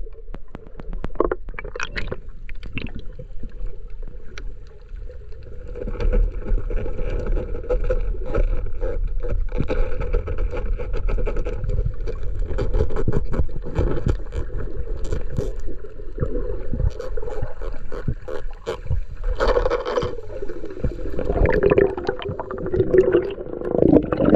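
Underwater sound through an action camera's housing: a muffled rumble of water with scattered clicks and crackles, and a faint steady hum through the middle. Near the end comes louder splashing and bubbling as a swimmer kicks up to the surface.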